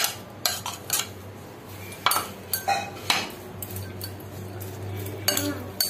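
A spoon knocking and scraping against a glass mixing bowl while crispy fried corn kernels are stirred with chopped onion, chilli and coriander; a string of scattered, uneven clinks.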